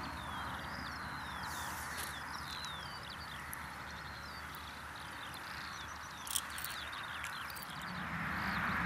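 A large flock of birds calling over a field, many short high falling calls overlapping, over a steady background hiss. A brief click about six seconds in, and a low rumble building near the end.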